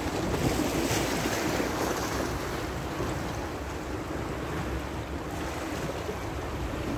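Choppy sea with small waves washing against a rocky shore, a steady noise of moving water, mixed with a low rumble of wind buffeting the microphone.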